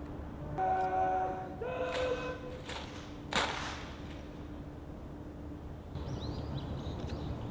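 A drawn-out shouted drill command in two long held syllables, followed by three or four sharp clacks as an honor guard brings its rifles down from present arms.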